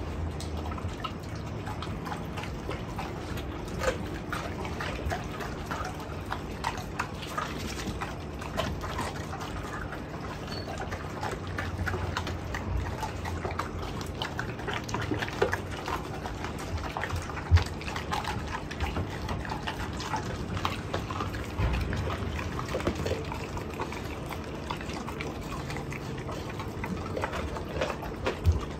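Mastiffs eating raw chicken from a steel bowl: wet smacking and chewing with bones crunching, and now and then a sharper knock.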